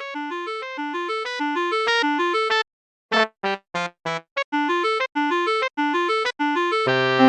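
Light, playful music in short detached notes, an arrangement for wind sextet: a repeating bouncing figure that stops dead about two and a half seconds in, resumes with short separate notes, and swells into fuller held chords near the end.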